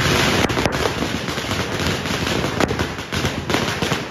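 Firecrackers going off in a rapid, continuous crackle of sharp bangs, with louder cracks standing out every so often.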